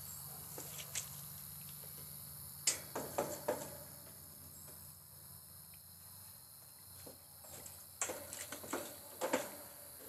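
Two short clusters of light knocks and clatter, about five seconds apart, from handling at the metal outdoor air-conditioner condenser cabinet, over a steady high chirring of insects and a low hum.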